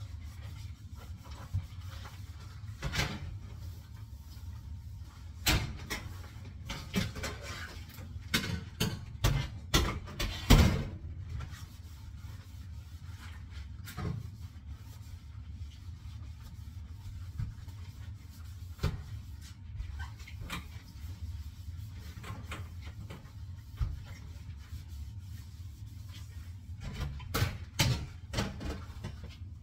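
Dishes and kitchenware knocking and clattering now and then during hand dishwashing, busiest in the first half and again near the end, over a steady low hum.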